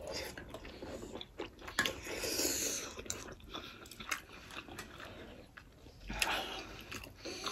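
Close-miked eating of pork momos: wet chewing with many short mouth clicks and lip smacks. Two longer breathy sounds through pursed lips come about two seconds in and about six seconds in.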